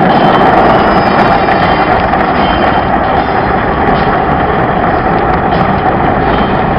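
Automatic car wash running, heard from inside the car: a loud, steady rushing noise that eases off slightly toward the end.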